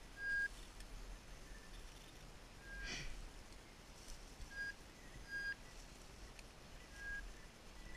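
Short, high beeps all at the same pitch, repeating at irregular intervals of about one to two seconds, typical of a bird dog's beeper collar while the dog is on the move. A brief rustle comes about three seconds in, over a low wind rumble.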